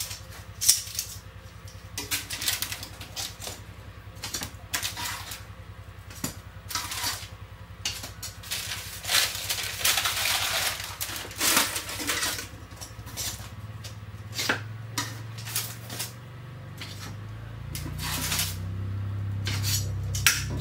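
Metal kitchen tongs clicking and clattering as baked calzones are lifted off a metal baking tray onto a wooden chopping board, with baking paper rustling about halfway through. A low hum builds over the last few seconds.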